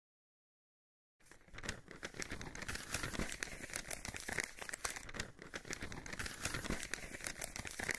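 Paper or parchment crinkling and rustling: a dense run of small crackles that starts about a second in after a moment of silence and keeps an even pace.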